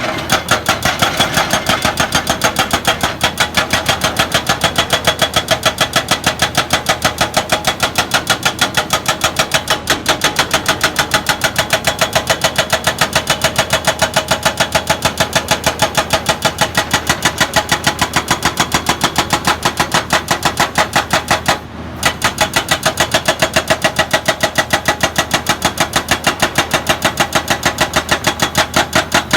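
Excavator working: a fast, even knocking of about three to four strokes a second over a steady diesel engine, breaking off briefly about 22 seconds in.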